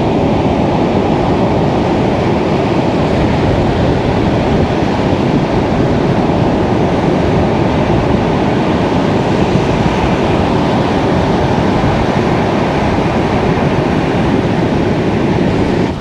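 Surf breaking and washing up on a sandy beach in strong wind, with the wind rumbling on the microphone: a steady, loud, low rush with no breaks.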